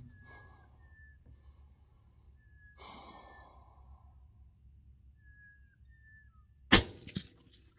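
A single suppressed rifle shot from a .22 BR bolt-action rifle with a Wedgetail suppressor, firing a 69-grain bullet at about 3,240 ft/s, a sharp crack almost seven seconds in. A weaker second crack follows less than half a second later.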